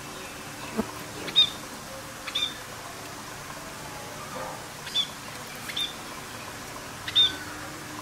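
Budgerigars chirping: about five short, sharp chirps spread over several seconds, over a steady background hiss.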